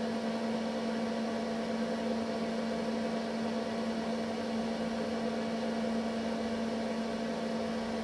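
Steady mains electrical hum, one strong unchanging tone with fainter overtones.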